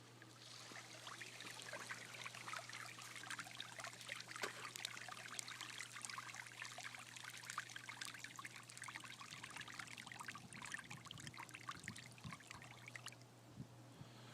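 Faint pouring and splashing of sewage water from a sump pump's discharge, over a low steady hum; the pouring stops shortly before the end.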